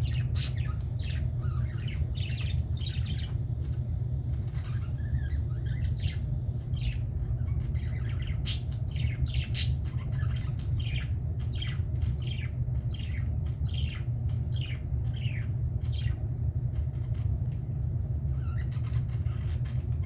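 Budgerigars chattering in rapid short squawks and chirps, with a brief lull near the end, over a steady low hum.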